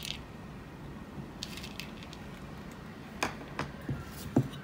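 A few faint light clicks and taps as roasted gram and nut pieces are set into a cloth-lined steel idli plate and the small bowl is handled, over a low steady hum.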